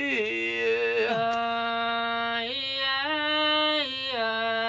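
A single voice singing a sustained vowel as a vocal exercise. The held note steps up in pitch about two and a half seconds in and drops back to the first note about a second and a half later.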